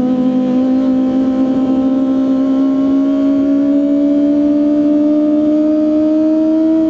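Kawasaki ZX-25R SE's 250 cc inline-four running through an Austin Racing exhaust, its high-pitched engine note rising slowly and steadily as the bike accelerates in one gear.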